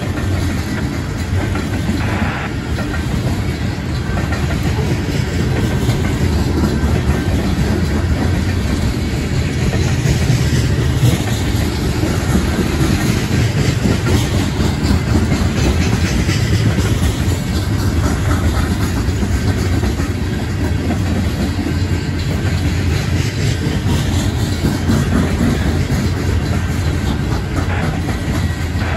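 Union Pacific coal train's hopper cars rolling past at slow speed: a steady, continuous rumble with the clickety-clack of wheels over the rail joints.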